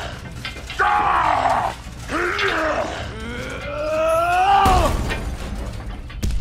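A voice making straining grunts and groans: a few short bent calls, then a longer drawn-out groan that rises and falls in pitch, with a low thud under its end.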